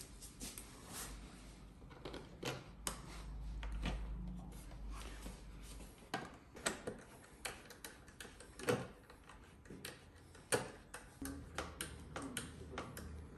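Irregular small clicks and taps of hard plastic being handled: hands working at a motorcycle's clear headlight guard and front fairing, with a few sharper clicks in the second half.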